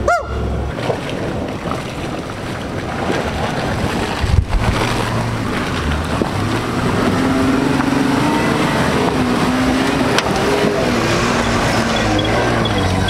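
Off-road SUV engines running as the trucks crawl along a dirt trail, under steady wind noise on the microphone. A brief chirp comes right at the start, and an engine note rises and falls in the middle.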